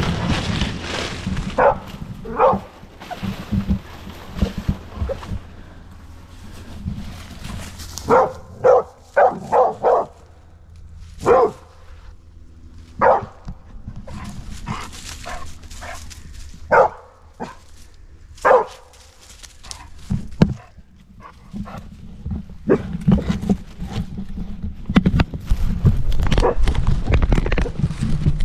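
Dog barking at a bayed, wounded wild boar hog: short barks, single and in quick runs of three or four, with loud low rustling and bumping noise from movement through brush in the last few seconds.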